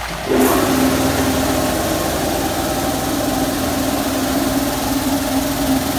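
Mark VII touch-free car wash's high-pressure spray starting up about a third of a second in: a steady pump hum over the hiss of water jetting from the arch onto the car.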